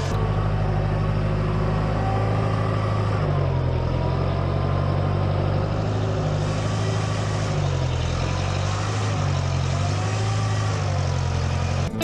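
Tractor engine running under the front loader as it moves a round hay bale, its engine speed shifting up and down a few times.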